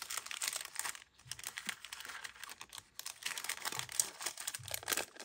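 Crinkling and rustling of sticker-pack packaging being handled, an irregular crackle that eases briefly a couple of times.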